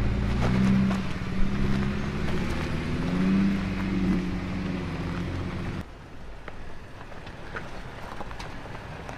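Jeep Wrangler JK's V6 engine running and revving unevenly as the Jeep crawls over rocks and gravel. About six seconds in the sound drops suddenly to a quieter, more distant vehicle, with small clicks and crunches of tyres on loose rock.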